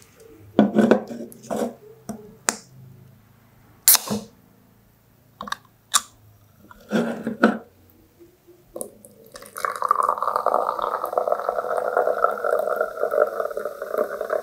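Clicks and knocks as a can of sparkling apple soda is handled and its pull tab opened, one sharp crack about four seconds in. Then the carbonated drink is poured into a glass tumbler: a steady splashing, fizzing pour over the last five seconds.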